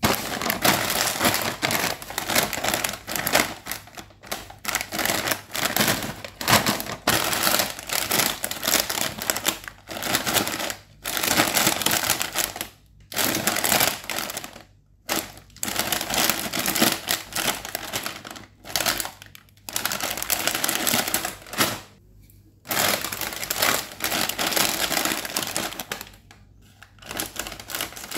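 Sealed plastic crisp and corn-snack packets (Uncle Chipps, Haldiram's Takatak, Crax) being squeezed and handled, their crinkly film crackling loudly. The crackle comes in stretches of a few seconds with brief pauses between them.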